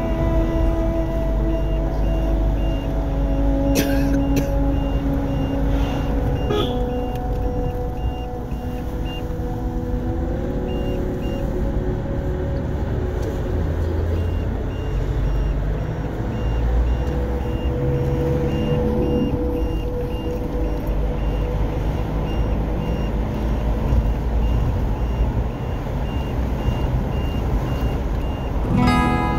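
Engine and road noise heard from inside a Mahindra Scorpio SUV on the move: a steady low rumble whose engine note drifts up and down a little with the throttle. A faint high pipping tone comes and goes.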